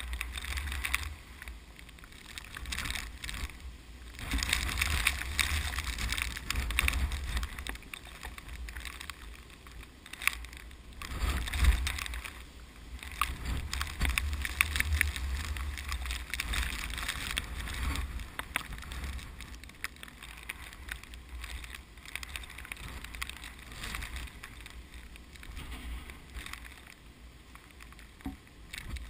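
Strong typhoon wind blowing in gusts, buffeting the microphone with a low rumble that swells and fades, the strongest gust about twelve seconds in. Under it runs the hiss of rice plants rustling in the wind.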